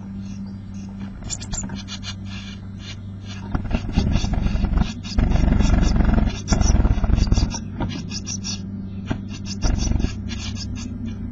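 Blue tit nestlings begging with rapid, high-pitched calls inside a wooden nest box, while an adult blue tit moves among them right by the microphone. Its wings and feet brush and scrape loudly against the box, most strongly from about four to seven seconds in, over a steady low hum.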